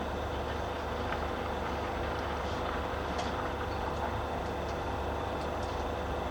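Steady low rumble of distant traffic, with a faint steady hum and a few faint brief high ticks.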